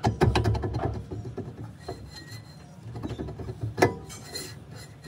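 Tools and metal parts clinking, tapping and scraping during drum brake work, with a quick run of clicks in the first second and one sharp knock near the end.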